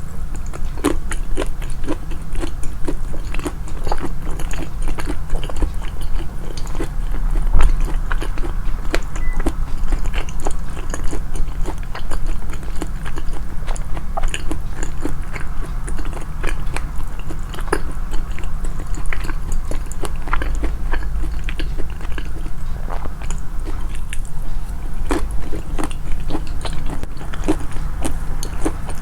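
Close-miked, amplified chewing and biting of food: a dense run of small wet clicks and crunches.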